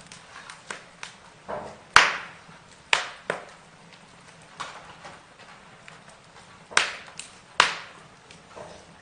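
Burning wood crackling and popping: irregular sharp snaps over a soft steady hiss, with a few louder pops about two, three, seven and seven and a half seconds in.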